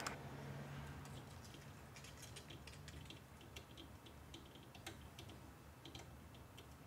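Faint, irregular small clicks and ticks of a screwdriver working the tiny mounting screws of a 3D printer's hot end nozzle assembly, metal tool on metal screw heads.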